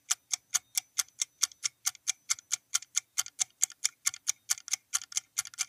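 Countdown-timer sound effect: a clock ticking in an even, quick run of about four ticks a second.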